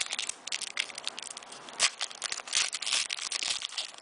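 Foil trading card pack being crinkled and torn open by hand: an irregular run of sharp crackles, loudest about two seconds in.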